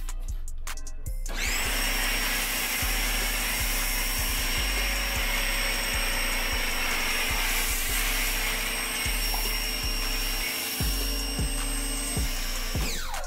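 A CAT electric pressure washer starts up about a second in and runs steadily with a high whine and the hiss of a foam cannon spraying, then winds down near the end. Background music with a steady bass beat plays underneath.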